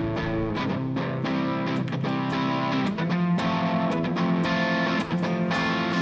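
Live worship band playing an instrumental intro: electric guitar over sustained keyboard chords, with a chord change about halfway through.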